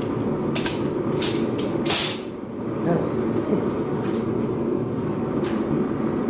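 A forge running with a steady rushing noise, with four sharp metallic clinks in the first two seconds.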